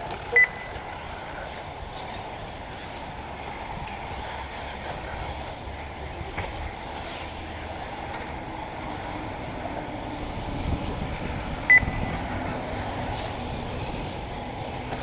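Two short, high electronic beeps, one about half a second in and one near twelve seconds, typical of a race lap-timing system. Under them is steady outdoor background noise with 1/8-scale electric RC buggies running on the track.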